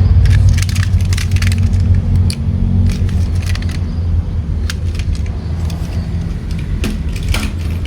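A steady low mechanical hum, with scattered sharp clicks and clatters of plastic toy vehicles being handled.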